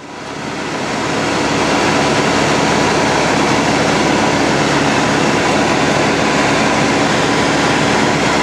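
Light propeller plane's engine and propeller drone heard inside the cabin in flight. It fades in over the first second or two, then runs loud and steady.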